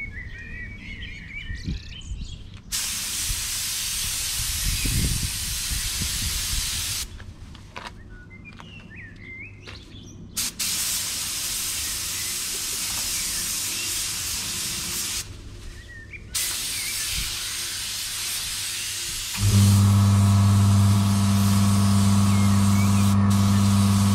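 Paint spray gun hissing in three long passes, with birds chirping in the gaps between them. About twenty seconds in, a loud machine starts up and runs with a steady hum.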